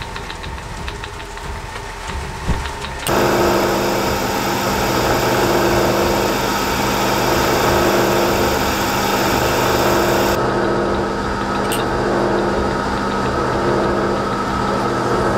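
Milling machine spindle motor running with a twist drill boring a bolt hole through a 4140 steel chuck back plate. The sound gets suddenly louder about three seconds in, and a high hiss drops away about ten seconds in while the motor's steady hum runs on.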